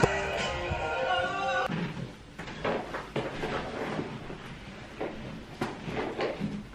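Music with sustained notes plays for under two seconds and then cuts off abruptly. After that come scattered light knocks, taps and rustles of a person moving about a room.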